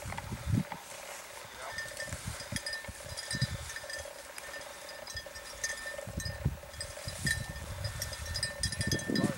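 Footsteps rustling and crunching through tall dry field grass, with irregular low thumps from a hand-held camcorder being carried.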